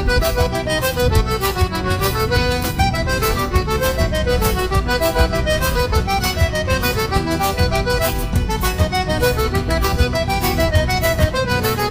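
Forró music: an accordion playing a quick, rippling melody over a steady, busy percussion beat.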